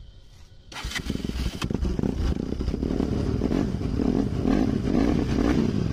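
Bajaj Pulsar motorcycle engine starting about a second in, then running with the throttle opened a little so it grows louder. The owner says this bike keeps shutting off by itself.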